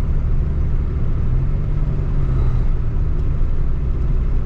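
Steady low rumble of a car driving at cruising speed, heard from inside the cabin: engine and tyre noise on asphalt.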